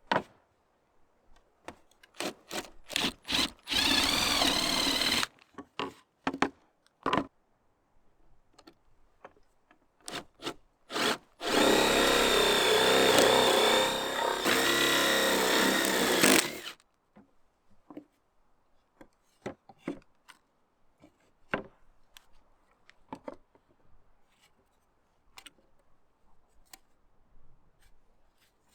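Woodworking: scrap-wood pieces knocked and handled, and a power tool running on wood twice, once briefly about four seconds in and then for about five seconds, followed by light taps.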